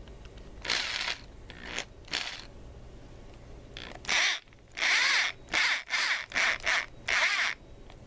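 Electric drill run in short trigger pulls, its motor whine rising and falling with each burst. There are a few brief bursts in the first half, then a quick series of about six in the last few seconds.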